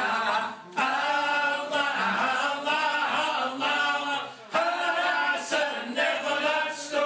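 A group of men singing a chant together in unison, unaccompanied, with short breaks between phrases.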